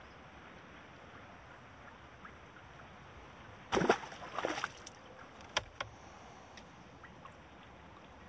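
Landing net and fish handled at the water's edge: a short burst of splashing and rustling about four seconds in, followed by two sharp clicks. Otherwise faint wind and pond ambience.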